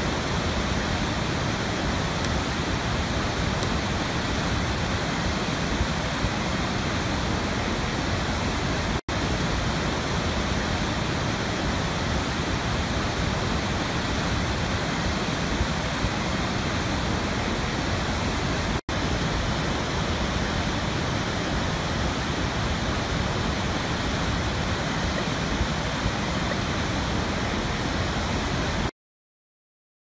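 Large waterfall: a steady, dense rush of heavily falling water. It cuts out for an instant twice and stops about a second before the end.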